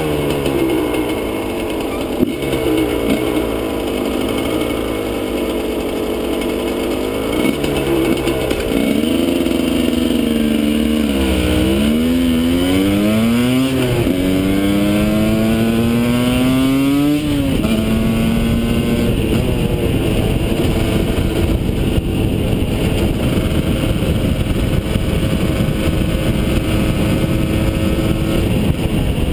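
Husqvarna SM 125 two-stroke engine through a Jollymoto exhaust, revving up and falling away again and again as the bike accelerates through the gears. For the last ten seconds or so it holds a fairly steady pitch.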